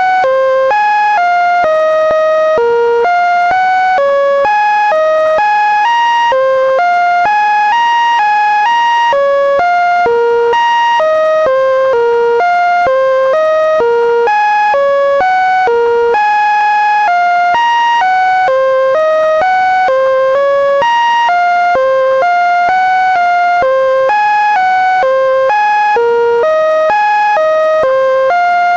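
Computer-generated electronic tones: the Linux kernel's data played back as a melody. It is an unbroken run of single beeping notes, about three a second, each jumping to a new pitch in no set order, with bright overtones above them.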